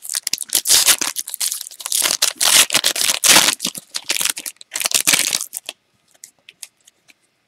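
Foil wrapper of a trading-card pack being torn open and crinkled: dense crackling for about five and a half seconds, then only faint light clicks as the cards are handled.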